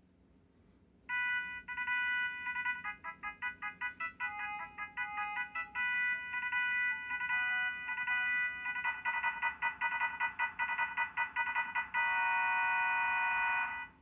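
Audiovox CDM9900 cell phone playing one of its preloaded ringtones: an electronic melody of quick beeping notes that starts about a second in and grows busier and fuller. It ends on a long held chord that cuts off just before the end.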